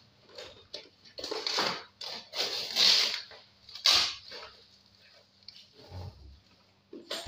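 Packing tape being peeled and ripped off a cardboard box: several rasping rips in the first four seconds, the sharpest just before four seconds in, then a soft thump of the box about six seconds in.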